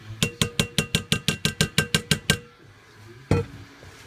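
A container is tapped about a dozen times in quick succession, roughly six ringing clinks a second, as green beans are knocked out into a glass baking dish. One more single knock follows near the end.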